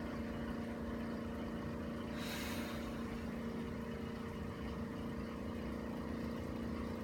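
Steady low electrical hum, with one short breathy rush about two seconds in: a patient's deep exhale during a stomach adjustment for acid reflux.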